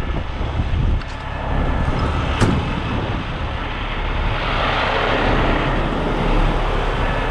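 Heavy rotator tow truck's diesel engine idling steadily, with a single sharp knock about two and a half seconds in and a rushing hiss from around four and a half to six and a half seconds in.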